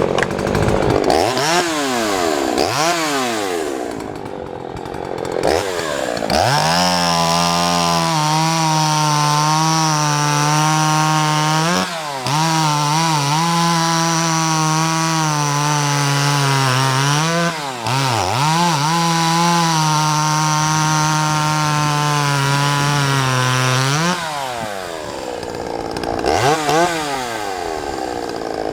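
Vintage Craftsman two-stroke chainsaw engine revving: a few quick throttle blips, then held at high speed for most of the time with two brief drops, then let back down with more blips near the end.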